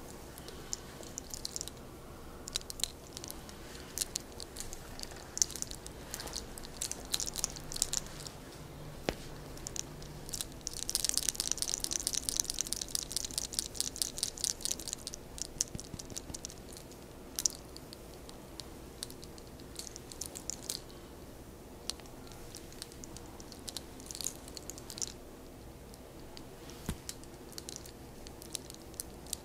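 Close-up crackling and rustling of a person's hair under the practitioner's hands: scattered sharp crackles, with a dense run of fast scratchy strokes for a few seconds in the middle.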